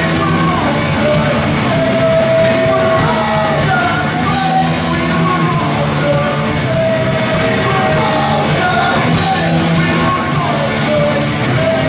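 Punk band playing live: electric guitar, bass and drums, with a singer yelling into the microphone.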